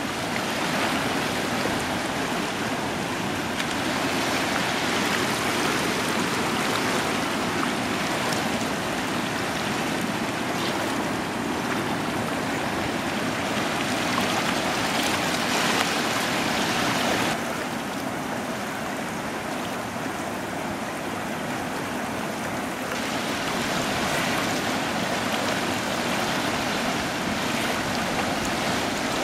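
River in flood, its flow greatly risen, rushing in fast, churning brown rapids with a steady roar of water. The higher hiss softens for a few seconds past the middle, then returns.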